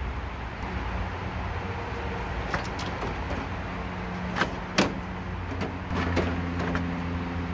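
Condenser fan and its plastic shroud being worked up and out of the engine bay: a series of plastic clicks and knocks, the sharpest about five seconds in, over a steady low hum that grows louder near the end.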